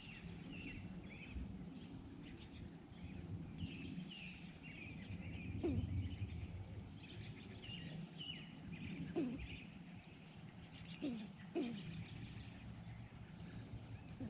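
Small birds chirping in short, repeated notes, with a few brief low calls that drop in pitch, over a steady low background rumble.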